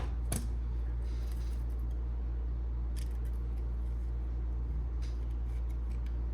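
Small clicks and taps of a replacement phone screen being handled and set onto the phone's frame, over a steady low hum.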